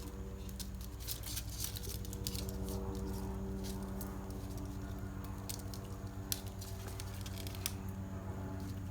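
Small scratchy rustles and clicks of hands working string around an orchid on a cork mount, tying and adjusting it. A steady low hum runs underneath.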